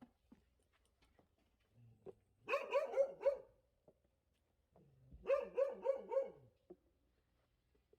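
A dog barking in two quick runs of about four barks each, a couple of seconds apart.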